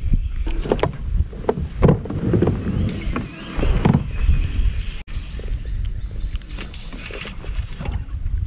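Wind rumbling on the microphone on a kayak, with a run of knocks and splashes in the first half and a few short high chirps about halfway through.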